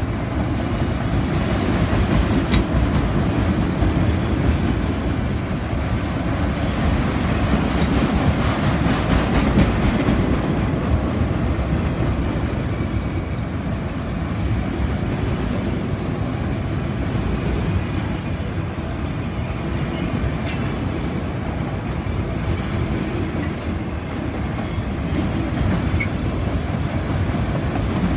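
Freight train of autorack cars rolling past at close range: a steady, loud rumble of steel wheels on rail, with a few clicks as wheels cross rail joints.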